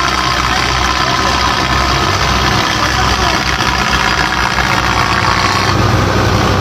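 Belarus tractor's diesel engine running steadily.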